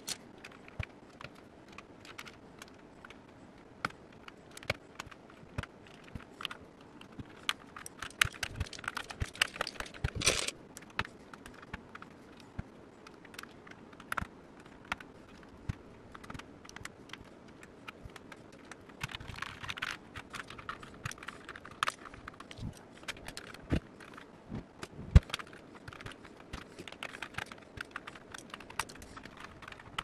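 Round plastic typewriter-style keycaps being pulled off and pressed onto a mechanical keyboard's switches by hand: irregular clicks and clacks, with a few louder snaps, one standing out near the end.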